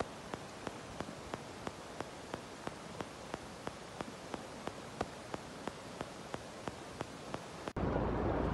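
Steady rushing of muddy floodwater, with a regular tick about three times a second over it. Near the end it cuts abruptly to much louder rushing water with wind on the microphone.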